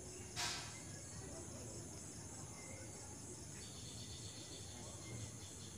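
Faint background noise with a steady, high-pitched, finely pulsing chirr, and a brief rustle about half a second in.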